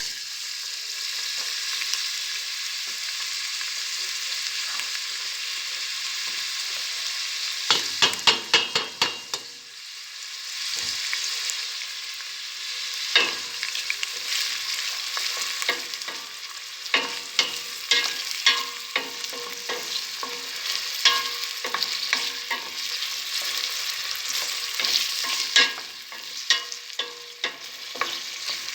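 Food sizzling steadily in a hot pan while a utensil stirs it, clicking and scraping against the pan in a quick flurry about eight seconds in and often through the second half.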